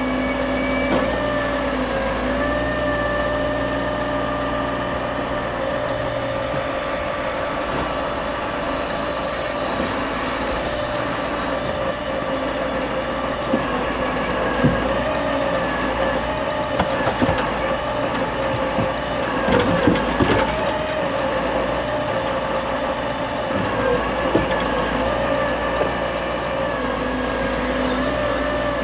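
Hydraulics of an Epsilon Palfinger M12Z timber crane whining steadily over the running Scania R580 V8 truck engine as the crane loads pine logs. There are several sharp knocks of logs and grapple against the load, most of them around two-thirds of the way through.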